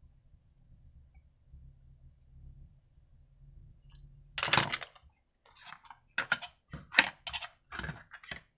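Screwdriver and small screws clicking and tapping against a chainsaw's housing as the cover screws come out. A loud clatter about four and a half seconds in is followed by a quick run of light clicks.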